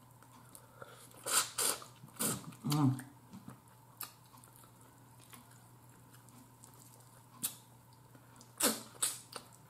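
Close mouth sounds of someone eating baked turkey necks by hand: chewing, smacking and sucking meat off the bone, in a few short bursts with quiet stretches between. A brief hum about three seconds in.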